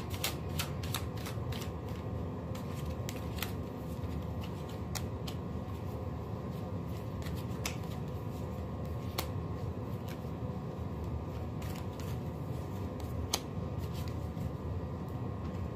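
A deck of tarot cards shuffled by hand: a quick run of card clicks at the start, then scattered single clicks and slides of cards.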